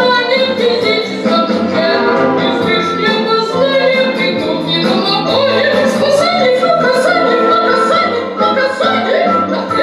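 Music from a stage song: an orchestral backing track with operatic-style singing, a wavering vibrato voice in the second half over a held high note.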